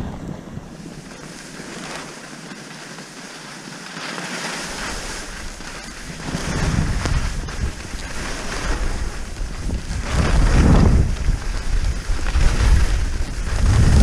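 Wind rushing over the microphone of a skier's point-of-view camera during a downhill run, with skis hissing over the snow. The rush is quieter at first, then builds from about halfway in, with the strongest gusts near the end.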